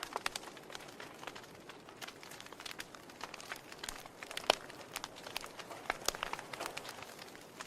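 Fireplace fire crackling: irregular pops and snaps over a soft hiss, with one louder pop about four and a half seconds in.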